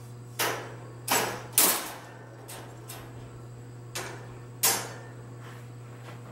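Metal clanks and rattles from a wire dog-kennel live trap as its trigger wires and door mechanism are worked by hand: about five sharp clanks, each ringing briefly, in the first five seconds, over a steady low hum.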